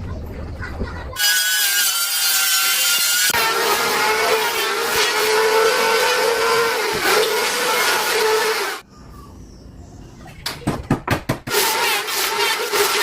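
Electric hand planer running: its motor first whines at speed, then cuts along a wooden board for about five seconds with a lower, heavier sound. It drops off, a few sharp knocks follow, and it cuts wood again near the end.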